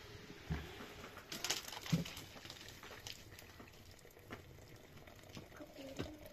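Handling noises of a black metal kettle lifted off a stone hearth and tipped to pour into a plastic-wrapped jar: scattered light clicks and knocks with plastic crinkling.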